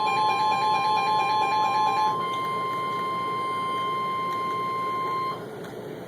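NOAA Weather Radio warning alarm tone, a steady single pitch of about a thousand hertz (the 1050 Hz tone), which sets off receivers ahead of the spoken warning. A second, pulsing beep sounds over it for about the first two seconds. The tone cuts off abruptly about five seconds in, leaving radio hiss.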